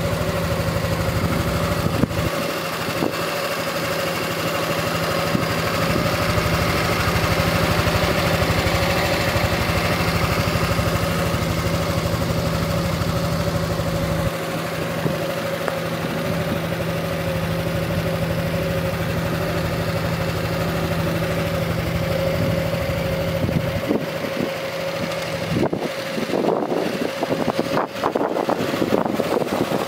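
Honda NSS300 Forza scooter's single-cylinder engine idling steadily. Near the end, a run of knocks and rustles on the microphone.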